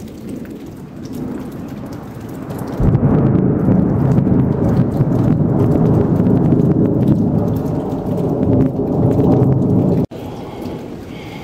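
Thunder rolling over steady rain after a nearby lightning flash: the rumble builds, breaks into a loud crack about three seconds in and rolls heavily for some seven seconds, then cuts off abruptly, leaving the rain.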